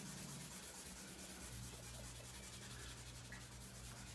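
Colored pencil rubbed rapidly back and forth on drawing paper: a faint, dry scratching of dense shading strokes.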